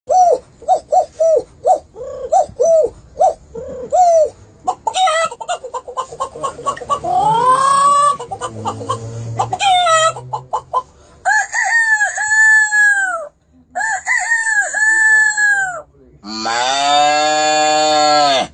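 A man imitating chickens with his voice: a run of short clucks, then quicker cackling, then drawn-out crowing calls, ending with one long held call.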